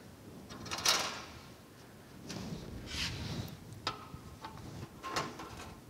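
A few sharp clicks and light rustles from hands fitting a steel band saw blade over the wheels and between the guides of a vintage DoAll vertical band saw. The saw is not running.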